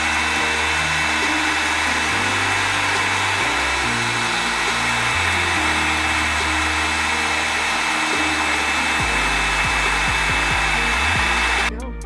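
Electric heat gun running steadily, a rush of blown air with a thin high whine, as it shrinks a heat-shrink butt connector onto a wire. It stops abruptly near the end, over soft background music.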